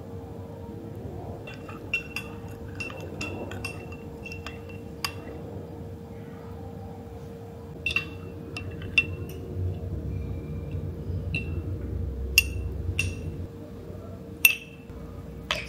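Metal teaspoon stirring blueberry jam into a yogurt drink in a glass tumbler, clinking against the glass: quick runs of light taps, then scattered single clinks, the sharpest ones near the end. A faint steady hum lies underneath.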